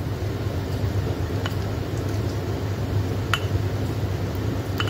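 Steady low room hum with three faint soft ticks about a second and a half apart, as a silicone pastry brush dabs egg wash onto raw pie pastry on a baking tray.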